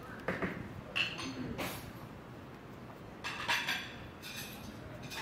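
Scattered light clinks and knocks of dishware, several separate strikes with a brief ringing tone to some of them, over a low room murmur.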